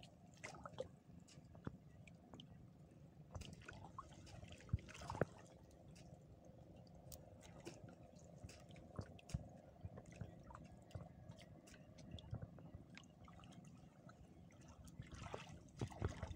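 Faint splashing and dripping of water disturbed by hands working a nylon mesh trap net in shallow water, with scattered small sharp sounds; two louder ones come about five seconds in.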